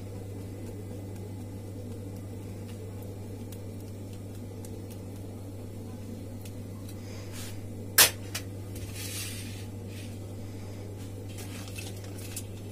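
Cheese being grated on a flat steel hand grater over a pizza base, faint soft scrapes under a steady low hum, with one sharp click about eight seconds in.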